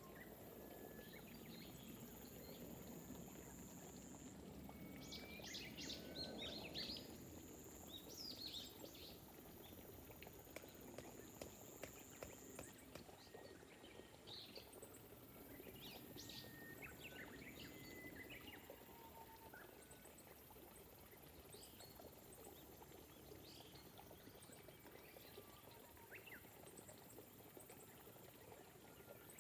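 Faint, gentle rain with small birds chirping on and off, the calls busiest about five to nine seconds in. A thin steady high tone sounds through the first half.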